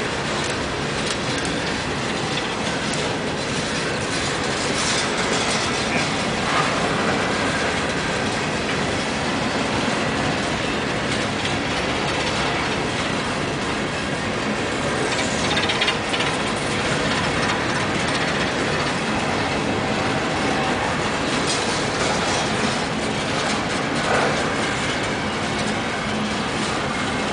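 Freight train of coal hopper cars rolling past: a steady rumble and rattle of steel wheels on the rails, with a few louder knocks along the way.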